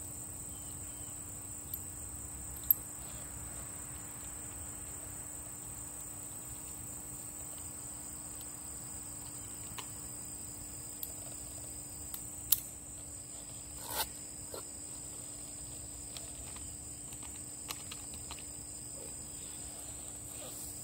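A steady high-pitched chorus of crickets, broken by a few short sharp cracks from a CO2-powered Schofield BB revolver being fired, the two loudest about three and twelve seconds in.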